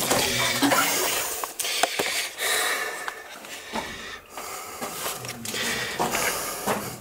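A person breathing hard close to the microphone while clambering through a rock tunnel, with rustling and scraping of the handheld camera and clothing and a few small knocks.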